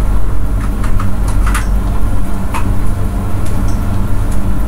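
Wooden spatula stirring and scraping a thick onion-tomato masala in a non-stick frying pan, with several short scrapes and taps against the pan, as the masala is sautéed until the oil separates. Under it runs a steady low mechanical hum.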